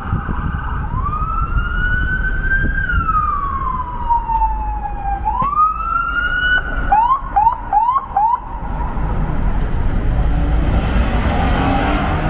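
Emergency vehicle siren over steady city traffic rumble: a slow wail rising and falling in pitch, a second rise, then four short quick upward yelps before it stops.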